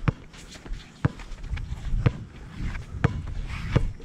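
Basketball dribbled on a court: five sharp bounces about a second apart, the last two closer together.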